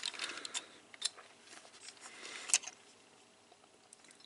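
Plastic parts of a Transformers toy figure clicking and rattling as it is picked up and handled, with a few sharp clicks in the first second and one more about two and a half seconds in.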